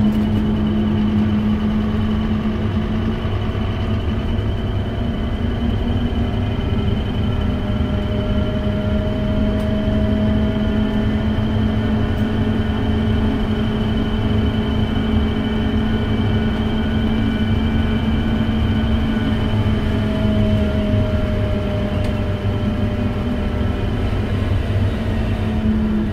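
Scania K270UB bus's five-cylinder diesel engine running as the bus drives, heard from inside the passenger cabin as a steady loud drone with a thin high whine over it. The engine sounds like a Lanz Bulldog tractor, which the owner blames on an exhaust manifold leak or bad valves.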